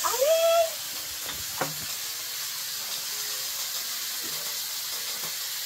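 Baby macaque giving one short rising squeal at the start, over a steady background hiss; a couple of light clicks follow a second or so later.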